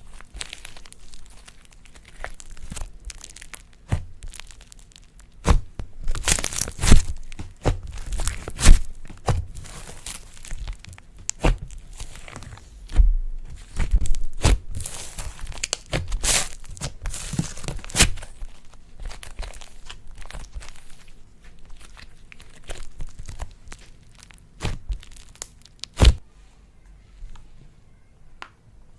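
Slime being stretched, pressed and worked by hand, with irregular crackling pops and sharp clicks, loudest in a busy middle stretch and quieter near the end.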